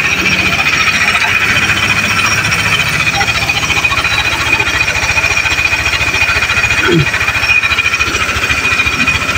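Yamaha NMAX's single-cylinder 155 cc scooter engine running steadily with a rough, growling mechanical noise ('ngorok/kasar'). The mechanic later traces it to a worn camshaft bearing.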